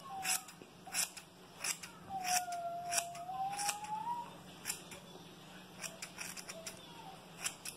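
Non-professional household scissors snipping through hair, about a dozen short, sharp cuts at an uneven pace. A long, faint rising tone sounds between about two and four seconds in.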